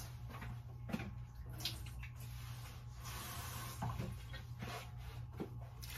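Kitchen sink faucet running briefly: a soft hiss of tap water as a little is added to a pan. Around it are a few light knocks and clinks of the pan and faucet being handled.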